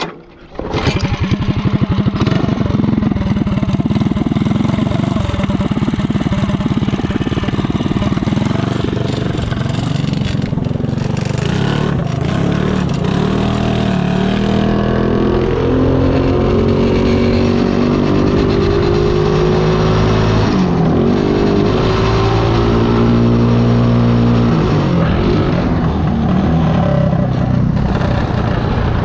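Stage 4 modified single-cylinder go-kart engine catching from a pull start about a second in, then running loud. In the second half its pitch rises and falls repeatedly as the kart accelerates and slows on the road.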